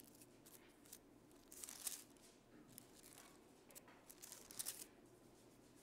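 Quiet room with faint rustling of thin Bible pages being turned, a few times.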